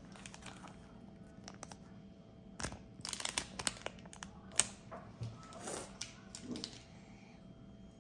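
Small plastic toy package crinkling and clicking as it is handled in the fingers, with a cluster of crackles about three seconds in and a sharper click in the middle.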